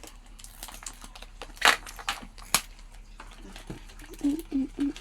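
Blind-box packaging wrapper crinkling as it is handled, with a few sharp crackles about one and a half to two and a half seconds in. A short burst of voice near the end.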